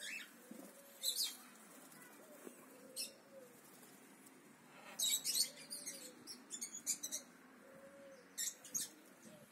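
Cockatiel giving short, sharp, high-pitched chirps, scattered singly and in quick clusters, with a soft low call arching up and down every second or two behind it.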